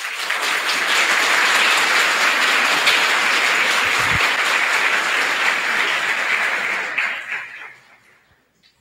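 Audience applauding, a dense steady clapping that starts as the talk ends and dies away near the end.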